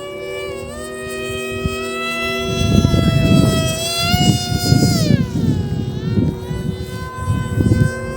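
Emax Eco II 2207 2400KV brushless motor spinning a 6x4 propeller, a high-pitched whine that shifts with throttle: its pitch drops about five seconds in and climbs back a second or two later. A low rumbling noise joins about two and a half seconds in.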